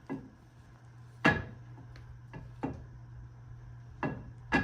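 About seven irregular knocks and clicks, the loudest about a second in and another near the end, over a steady low hum.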